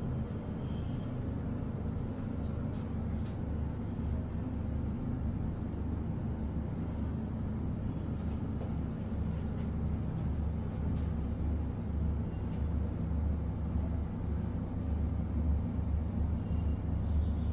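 Automatic upper-arm blood pressure monitor's small air pump running steadily with a low hum as it inflates the cuff for a reading, growing slightly louder toward the end.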